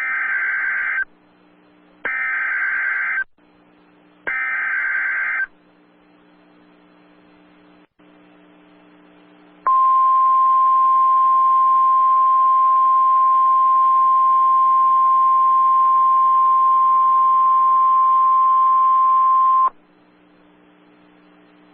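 NOAA Weather Radio Emergency Alert System tornado warning alert: three short bursts of SAME digital header, a raspy modem-like screech about a second each, then a few seconds' pause and the steady Weather Radio warning alarm tone held for about ten seconds before the spoken warning.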